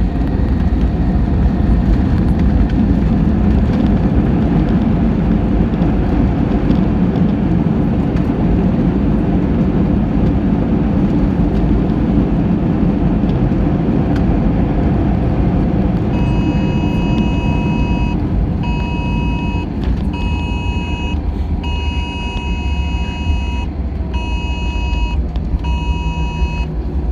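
Inside the cabin of a jet airliner rolling along the runway just after landing: a steady low rumble of engines and wheels, easing a little as the aircraft slows. In the second half a thin high tone sounds in broken stretches of about a second, on and off.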